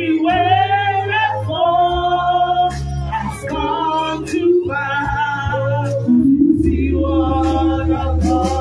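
A woman singing a slow praise melody into a microphone, with long held notes that glide between pitches, over steady low accompanying notes.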